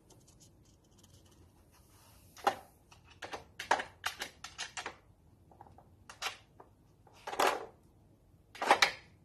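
Hard plastic dog puzzle feeder clattering as a toy poodle noses at its sliding drawers and lids: an irregular run of sharp clicks and knocks starting a couple of seconds in, with two longer, louder rattles near the end.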